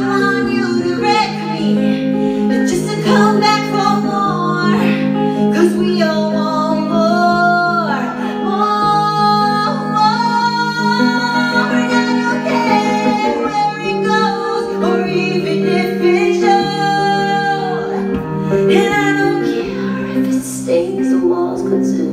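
A woman singing live over a clean electric guitar. Her voice holds long notes and glides between them over sustained guitar chords that change every second or two.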